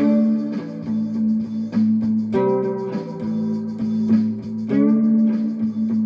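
Homemade short-scale fretless string instrument tuned A-E-a, played as a looped improvisation at 100 bpm. A steady drone on A sounds throughout, and new plucked notes come in about every two and a half seconds, once a bar.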